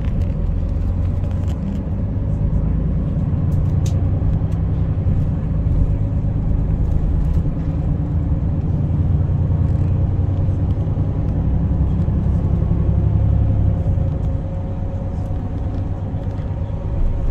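City bus engine and road noise heard from inside the cabin while it drives: a steady low rumble with a faint whine above it, easing slightly near the end.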